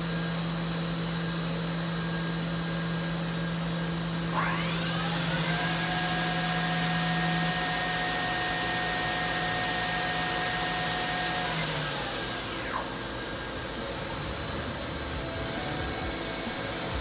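Fanuc Robodrill Mate's spindle spinning up with a rising whine about four seconds in. It runs steadily at speed with a loud hiss, then winds down with a falling whine about twelve seconds in, over the machine's steady low hum.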